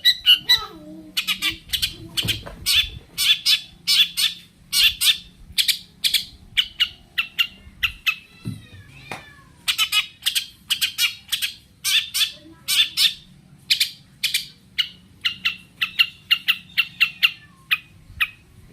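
Long-tailed shrike (cendet) singing aggressively in a fast run of harsh, scratchy notes, about four a second, broken by a short pause with a falling whistled note a little before the middle.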